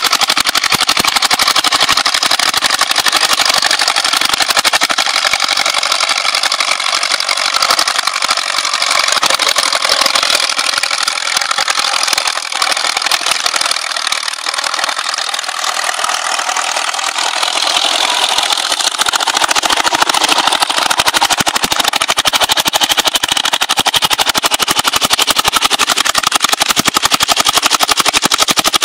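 Vintage crawler tractor's engine running steadily under load as it pulls a plough through the field. The engine makes a fast, even chatter throughout, slightly quieter around the middle.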